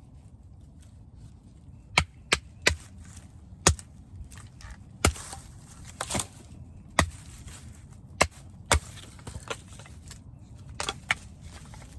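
Baton striking the spine of a 3.5-inch Terra Knives Forester knife to drive it through wood. About a dozen sharp, irregularly spaced knocks, with crackling of the wood splitting between strikes around the middle.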